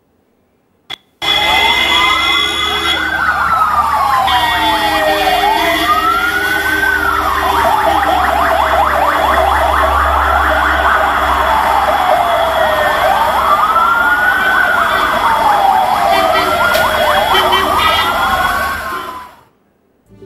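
Sirens of a line of ambulances wailing at once, several slow rising-and-falling sweeps overlapping out of step, over a low rumble of traffic. They come in about a second in and fade out shortly before the end.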